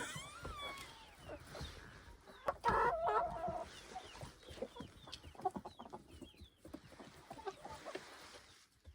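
Chickens clucking while chicks peep in many short, high, falling chirps. About three seconds in there is one louder, drawn-out call.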